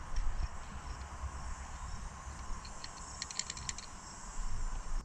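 A quick run of small clicks and rattles, about three seconds in, as parts are handled and fitted back into a Minn Kota Ultrex trolling motor's steering assembly during reassembly after a steering cable repair, over a steady low rumble.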